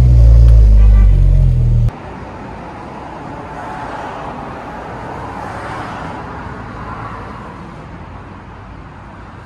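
Loud, steady low drone of a 9th-generation Honda Civic Si's 2.4-litre four-cylinder through a loud exhaust, heard from inside the cabin while driving. It cuts off abruptly about two seconds in, giving way to much quieter outdoor street noise that swells and fades.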